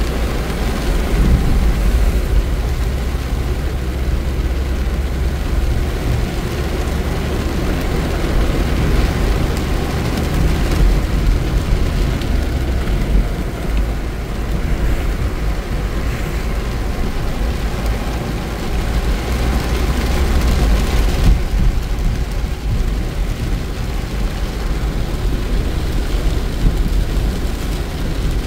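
A car driving in heavy rain, heard from inside: a steady low rumble of engine and tyres on the wet road with the hiss of rain and spray.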